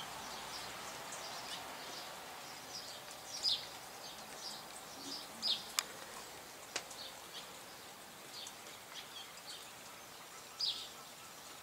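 Birds chirping: scattered short, high calls every second or so over faint outdoor background noise, with two sharp clicks about a second apart near the middle.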